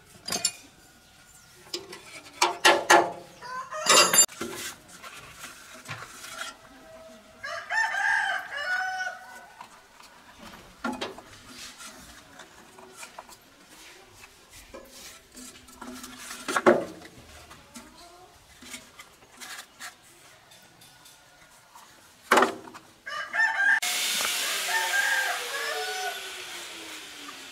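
Chickens: roosters crowing and hens clucking, mixed with several sharp knocks. A loud hiss with a falling tone starts near the end.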